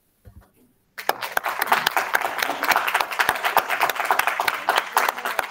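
Audience applauding, starting suddenly about a second in and going on as many hands clapping together.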